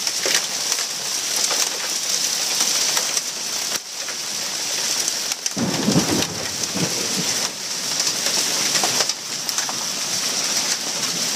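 Steady rain falling with scattered drips and ticks, and a brief low rumble about six seconds in, as a hailstorm passes.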